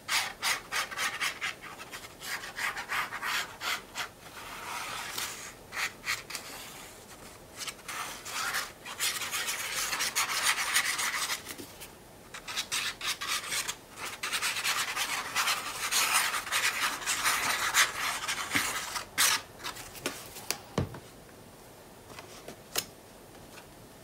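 Tip of a squeeze bottle of liquid glue rubbing and scraping across paper in quick repeated strokes as glue is laid down. About 20 seconds in the strokes stop, and a single soft thump follows.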